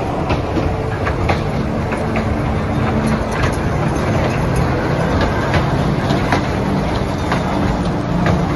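Children's fairground train ride running round its small track: a steady rumble with irregular clicks and clacks from the wheels on the rails.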